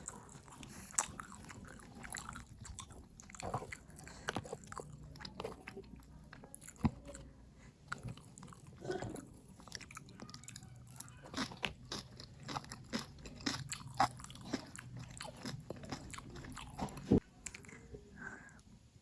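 Close-miked mouth sounds of a person eating: irregular wet chewing clicks and crunchy bites, with a sharper click near the end.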